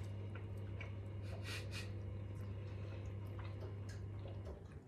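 Two people chewing pizza with a hard, crisp crust: scattered small crunches, mouth clicks and breaths over a steady low hum that cuts off near the end.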